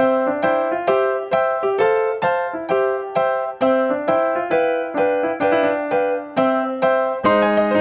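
Background music: a piano melody of evenly spaced single notes, about two a second, joined by fuller, lower chords near the end.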